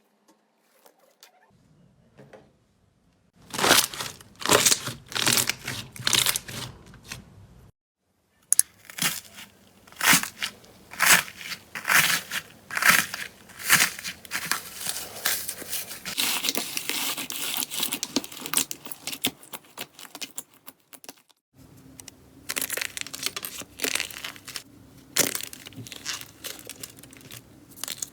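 Slime squeezed and pressed by hand, giving dense runs of sharp crackles and pops. The crackling starts a few seconds in and comes in three stretches, broken by two short silences.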